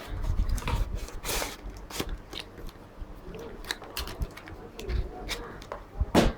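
Rustling and irregular clicks from a camera strap and its packaging being handled during unboxing, with a louder rustle about a second and a half in and another near the end.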